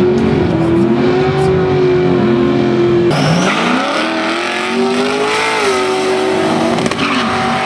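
Drag cars' engines at full throttle, their pitch climbing and holding; about three seconds in, a new run starts, with engines rising in pitch off the line and dropping once at a gear change.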